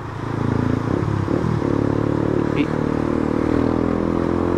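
Yamaha Factor's single-cylinder four-stroke engine running under way. It picks up over the first second, then holds a steady pitch.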